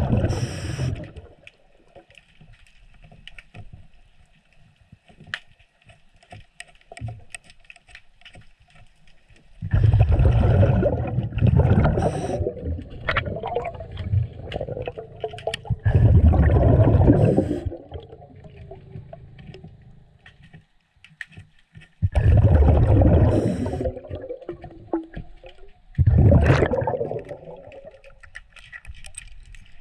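Underwater breathing through a diver's regulator: a bubbling, gurgling exhalation lasting one to three seconds, repeated every few seconds, with faint clicks and taps in the quieter stretches between breaths.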